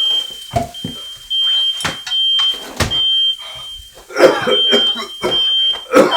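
Smoke alarm beeping in a repeating on-off pattern of high-pitched tones, set off by a pot left burning on the stove. Several sharp knocks and clatters sound over it, the loudest about four and six seconds in.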